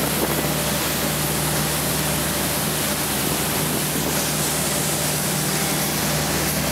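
Suzuki outboard motor running steadily at speed with a low hum, under the loud, even rush of the churning wake and spray behind the boat.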